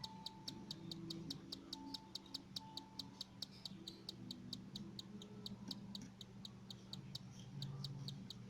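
Cockatiel chicks begging with rapid, evenly repeated high chirps, about five a second, the steady call chicks give when asking to be fed. A faint low hum and a few soft tones run underneath.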